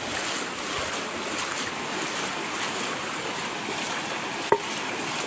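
Floodwater flowing fast, a steady rushing wash. A single sharp click about four and a half seconds in.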